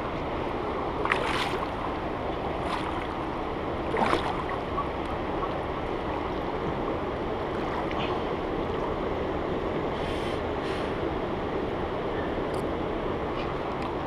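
Shallow river water rushing over rocks and around the legs, a steady rush with a few brief splashes.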